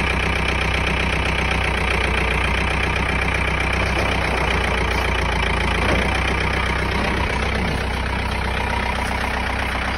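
John Deere compact tractor's diesel engine running steadily at idle.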